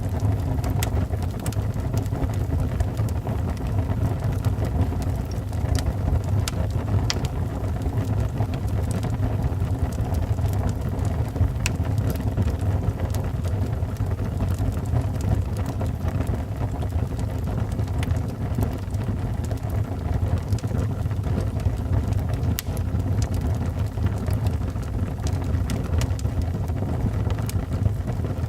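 Wood fire burning in a fireplace: a steady low rush of flames with scattered sharp crackles and pops from the burning wood.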